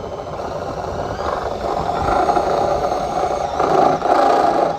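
A motor-driven tool running continuously with a rattling whine, growing louder toward the end.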